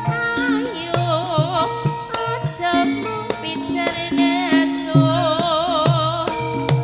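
A Javanese sinden (female singer) singing in wavering, ornamented lines over tayub gamelan accompaniment, with repeated hand-drum strokes under sustained metallophone tones.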